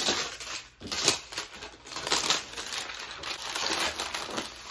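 Clear plastic shrink wrap crinkling irregularly as it is pulled off a cardboard box set.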